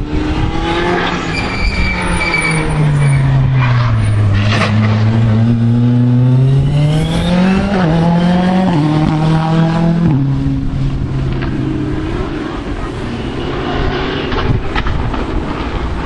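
Rally car passing at speed on a stage. Its engine note drops as it comes in, then climbs hard with quick gear changes as it goes past, and fades as it drives away.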